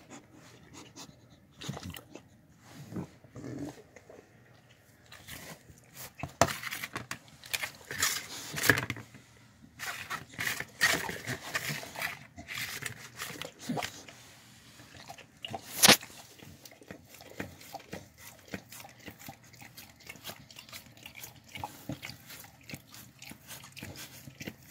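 A dog at close range sniffing, licking and chewing, with irregular clicks and knocks; one sharp knock stands out about two-thirds of the way through.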